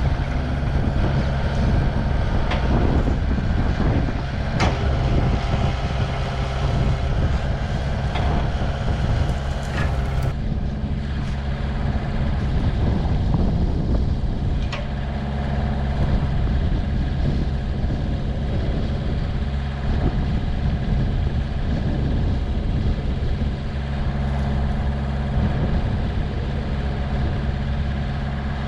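Heavy machine's engine running steadily, with a few sharp metal knocks in the first ten seconds or so.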